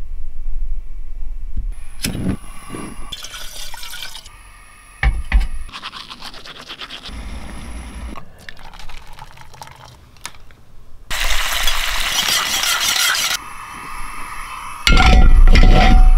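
Camp cooking sounds in short cuts: metal clinks and knocks of cookware, liquid sounds, and a propane burner and kettle hissing steadily for a couple of seconds about two-thirds through, with a loud low rumble near the end.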